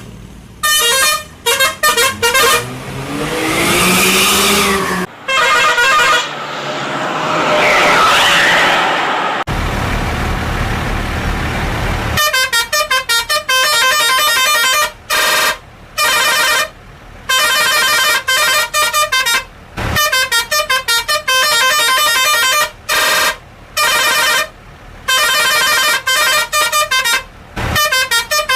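Indonesian bus 'telolet' musical horns: several horn tones play fast, chirping multi-note tunes in bursts of a second or two, with short breaks between them. Before the fast tunes start, slower horn tones glide up and down, followed by a few seconds of low rumbling noise.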